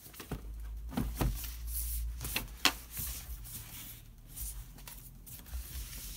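A cardboard laptop box being handled: soft rustling with scattered light taps and clicks, the sharpest a little past two and a half seconds in, over a low handling rumble.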